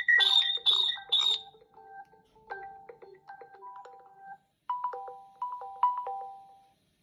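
Smartphone incoming-call ringtones played one after another. A loud repeating chime pattern of about two to three notes a second stops about a second and a half in. A quieter run of short plucked notes follows, and near the end a short melody of a few notes fades out.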